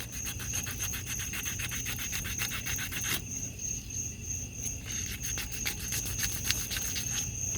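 Crickets chirping: a steady high trill, with rapid pulsing chirps over it that stop and start again.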